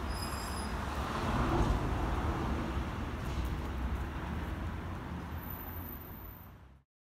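Outdoor rumble of distant road traffic, swelling about two seconds in and then fading out to silence near the end. A few brief high chirps at the very start.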